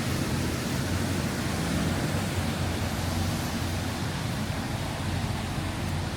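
Steady rain falling, an even hiss with the low rumble of road traffic underneath.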